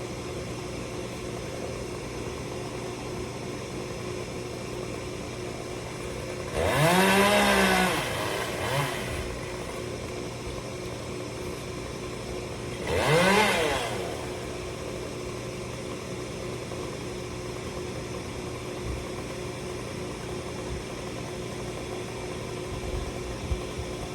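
Chainsaw engine running steadily, revved up twice: a longer rev about a third of the way in and a shorter one about halfway, each rising and falling in pitch.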